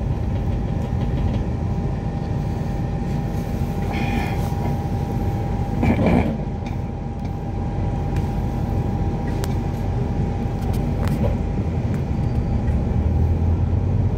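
ADL Enviro400 Hybrid double-decker bus on the move, heard from inside on the upper deck: steady drive and road rumble with a constant steady tone. A brief higher sound comes about four seconds in and a short louder noise about six seconds in.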